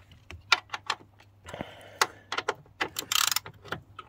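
Ratchet wrench clicking in short, uneven runs as a 10 mm bolt is wound out, with a quicker run of clicks about three seconds in.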